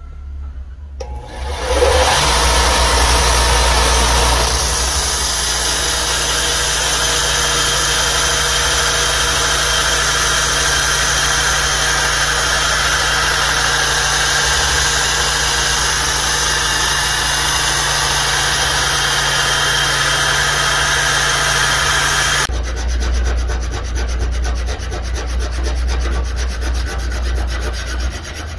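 Belt grinder running and grinding the edge bevel of a steel knife blank cut from a saw blade: a steady, loud grinding over a low motor hum that starts about two seconds in. Near the end it changes to the rasping strokes of a hand file along the blade's edge.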